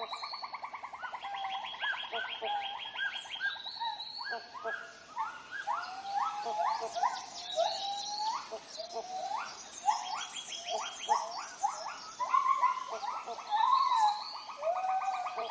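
Tropical rainforest chorus of many calling birds and other animals overlapping: rapid buzzy trills, upward-sweeping calls and short high whistles, densest toward the middle and late part.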